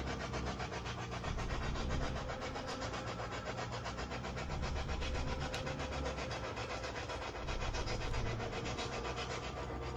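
Spirit box radio scanner sweeping through stations: continuous rapid, choppy radio static.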